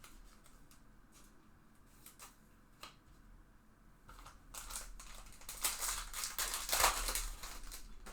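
Trading cards and their packaging being handled: a few light clicks early, then a crinkling rustle of about three seconds in the second half, typical of a foil card pack being torn open.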